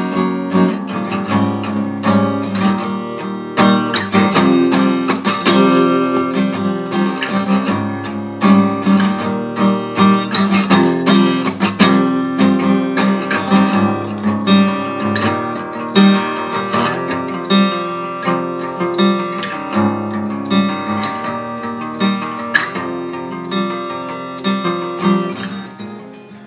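Ibanez V320 steel-string dreadnought acoustic guitar strummed in a steady rhythm of chords, with no singing, growing softer near the end.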